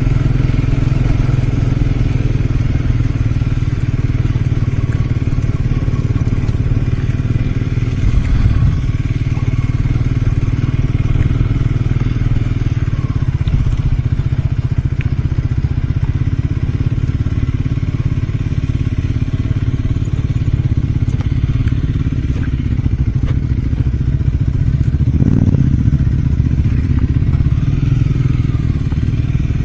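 Triumph Scrambler 400 X's single-cylinder engine running while the bike is ridden off-road, its exhaust note rising and falling with the throttle. A couple of short knocks come through, about 8 seconds in and near the end.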